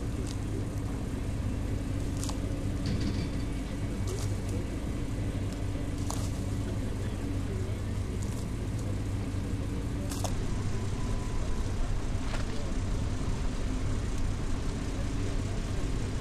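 An engine running steadily with an even hum, with a few sharp clicks and knocks over it. Part of the hum drops away about ten seconds in.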